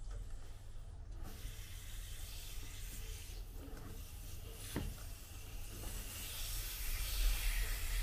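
Water hissing and trickling out of a loosened radiator valve union as the radiator drains, with a towel rubbing against the fitting. There is a sharp click about five seconds in, and the hiss grows louder near the end.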